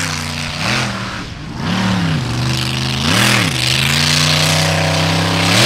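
Mud-bog truck's engine revving hard in repeated swells as it churns through a dirt pit, pitch rising and falling several times, then held high near the end, over a heavy rushing noise.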